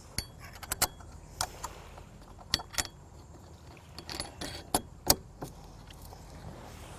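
Light metallic clicks and clinks, about a dozen scattered irregularly, as large washers and knurl nuts are handled and fitted onto the bolts holding the mast step to the floorboard.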